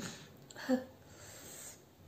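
A woman sneezing: a short, sharp sneeze less than a second in, the loudest sound, with the end of another burst right at the start, followed by a breathy hiss of air.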